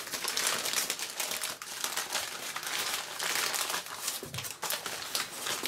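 Crumpled newspaper packing paper crinkling and rustling as it is pulled open and unwrapped by hand: a continuous run of crackles.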